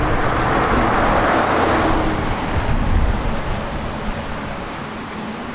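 A pickup truck drives past close by, its tyre and engine noise swelling and then fading over the first two seconds or so. Gusty wind buffets the microphone underneath.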